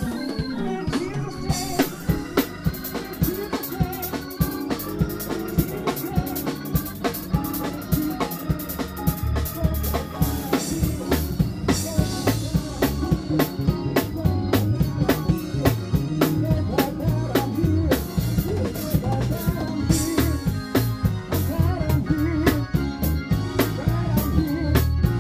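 Live gospel band playing: a drum kit keeps a busy, steady groove over sustained organ and keyboard chords and a bass guitar line.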